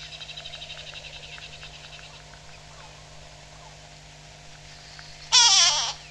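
Grey go-away bird giving its loud, nasal, downward-wavering alarm call once near the end, a sign of alarm at the hawk eagle. Before it, a rapid high trill sounds for about the first two seconds.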